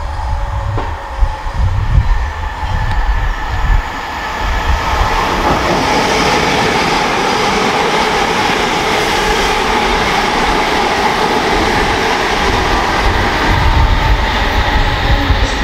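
c2c Class 357 electric multiple unit passing at speed. An uneven low rumble builds for the first few seconds, then gives way to a steady loud rush of wheels on rail under a whine from the traction motors.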